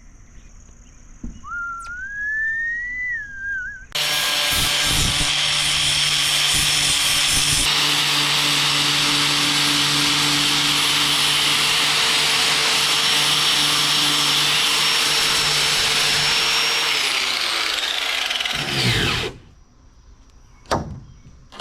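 Electric power tool switched on with a sudden start. Its motor runs at a steady speed for about thirteen seconds, then is switched off and winds down over about two seconds.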